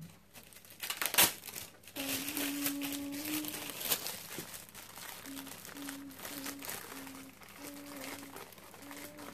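Thin plastic bag rustling and crinkling as it is handled and pulled over a seed tray, with a sharp knock about a second in.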